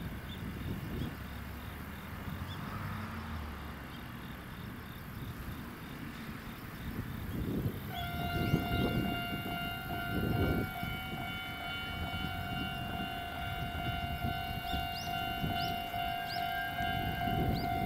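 Railway level-crossing alarm starts ringing about eight seconds in and keeps on with a steady, high electronic tone, the warning that a train is approaching. A low rumble runs underneath, heaviest around when the alarm starts.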